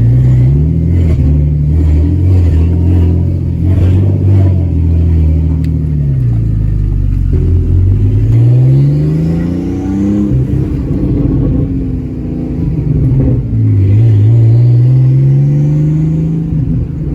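BMW E46 engine pulling the car on a test drive: the engine note rises as it accelerates, drops at a gear change about ten seconds in, then climbs again near the end.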